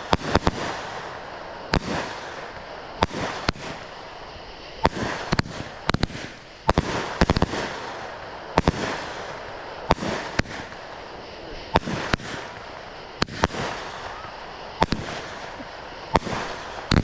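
A 25-shot consumer firework cake (Fox Fireworks Premium Willow) firing, with a sharp bang every second or so, sometimes two or three close together, over steady crackle from the gold silk willow and blue pearl effects.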